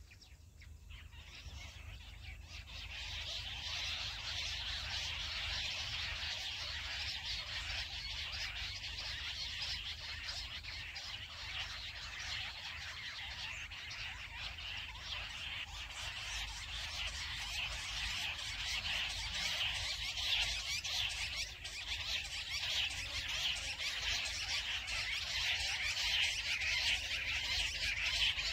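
Chorus of jungle bush quail calls: many rapid, high chirping notes overlapping without a break, growing louder over the first few seconds.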